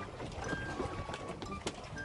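Steady low rumble of wind and water on a small open fishing boat, with scattered light clicks and knocks.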